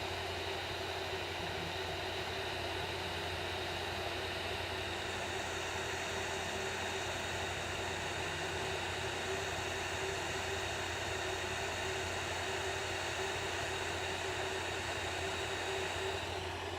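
Hot air rework station blowing steadily: a fan-driven hiss with a low hum and a steady tone, heating the solder pads of a small surface-mount switch to lift it off a circuit board. The hiss grows brighter about five seconds in.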